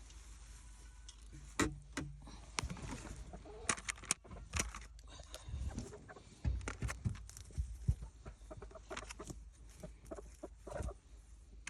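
Hens clucking, unsettled and scared, among scattered knocks, scrapes and rustling.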